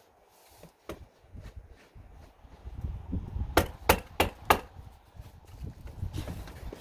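Four quick, sharp strikes about a third of a second apart, about midway through, as 30-pound felt paper is fastened around a window opening. Fainter knocks and handling noise come before and after.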